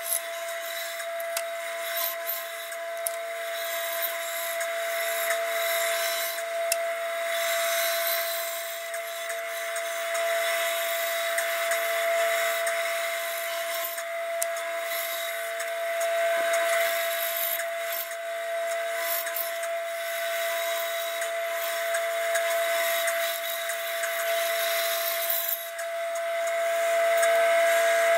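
Bandsaw running with a steady high whine while its blade cuts a tight curving path through a block of wood. The cutting noise swells and eases as the block is turned, and it gets louder near the end.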